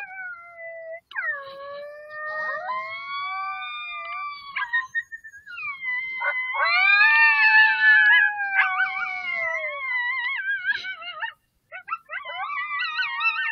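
A group of coyotes howling and yipping: several voices overlap in long wavering calls that rise and fall, loudest around the middle, breaking briefly near the end into quick quavering yips.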